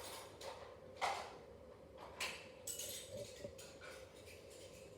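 Scissors cutting through folded origami paper: a few soft, faint snips and paper rustles, the clearest about one second and two seconds in.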